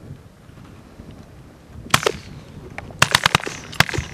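Volley of shotgun fire from several hunters: one shot about two seconds in, then a rapid string of about five more shots a second later.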